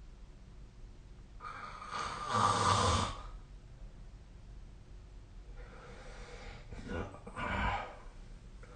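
Sleeping person snoring: two long, noisy snoring breaths about four seconds apart, the first loudest.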